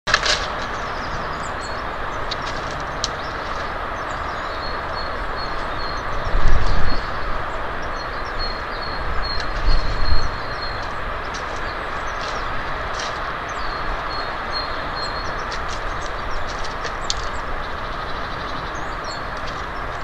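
Steady rushing outdoor noise with two low thuds, about six and a half and ten seconds in, and light clicks of a female pheasant pecking at seeds and nuts in a wicker feeder basket.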